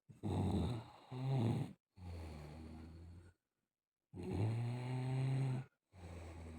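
A man snoring in his sleep: four long, low snores of about a second and a half each, alternating louder and softer, with sharp breaks of silence between them.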